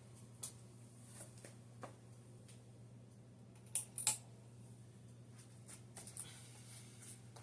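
Hunter Infiniti ceiling fan light kit's pull-chain switch clicking: a few faint clicks, with two sharper ones close together about four seconds in, over a faint steady low hum.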